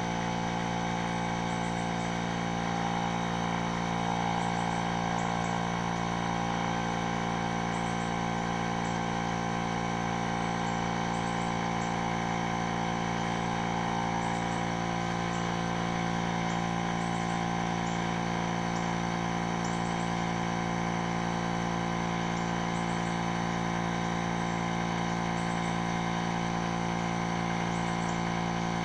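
A motor running steadily with an even, unchanging hum.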